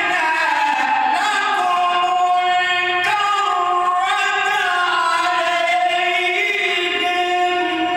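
A man reciting the Quran in the melodic tajweed style, drawing a phrase out into one long ornamented note that winds up and down in pitch without a break for breath.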